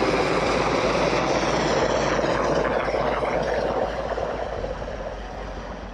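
Westland Sea King rescue helicopter passing low overhead, its rotor beating rapidly over the turbine noise, growing fainter as it moves away near the end.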